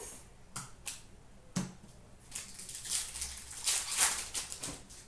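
Trading cards being handled and laid on a glass counter: a few light taps and flicks in the first couple of seconds, one with a soft thump, then a couple of seconds of rustling and sliding as cards are sorted.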